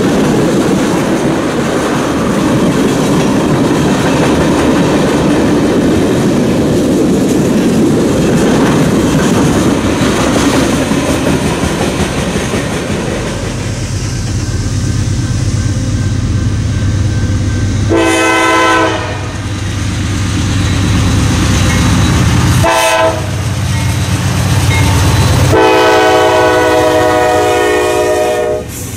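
Freight train of empty tank cars rolling past close by: a steady rumble and clatter of wheels on rail. About halfway through, this gives way to the low drone of another freight's diesel locomotives approaching. That train's multi-note air horn sounds three times: about a second, then a brief toot, then a long blast of about three seconds near the end.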